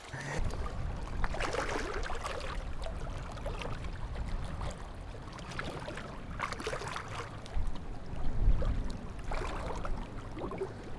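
Ducks diving and paddling close in on the water, with a few splashes and lapping water over a steady low rumble.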